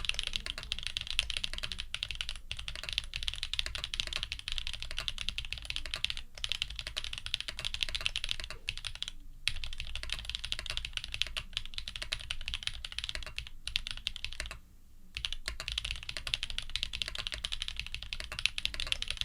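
Fast, continuous typing on a custom F1-8X mechanical keyboard with lubed Jade Black switches, an aluminium plate and Leopold PBT keycaps. The typing pauses briefly about nine seconds in and again for about half a second near fifteen seconds.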